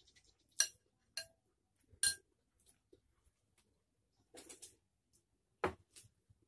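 A metal spoon clinking against ceramic bowls and plates a few times as food is served, with a soft rustle of handled food and one more knock near the end.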